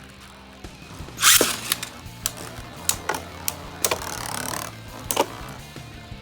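3D-printed Beyblade spinning tops clashing in a stadium: a string of sharp clicks and knocks, the loudest about a second in, over background music.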